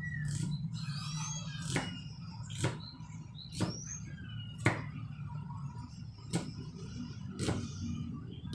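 Kitchen knife slicing onion on a wooden chopping board: sharp knocks of the blade on the board, irregular but roughly once a second. High chirps sound in the background over a steady low hum.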